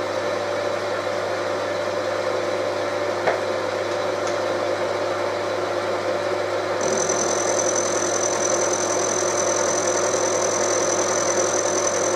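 Milling machine spindle running with an end mill. About seven seconds in, a high steady whine joins the hum as the cutter bites into the stainless steel bar, milling a hex flat. A single click comes about three seconds in.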